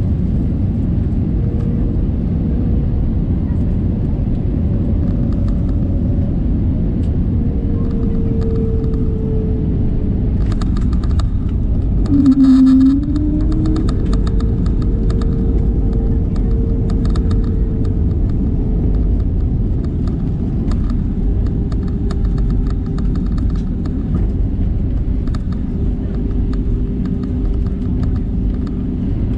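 Cabin noise aboard an Airbus A320neo: a steady low rumble with faint engine tones, and rattling of cabin fittings from about ten seconds in. About twelve seconds in, a short louder tone dips and rises.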